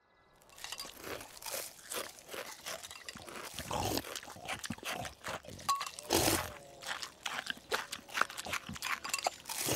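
Noisy chewing and crunching of a spoonful of cereal eaten from a bowl: a dense run of short crunches, one louder about six seconds in.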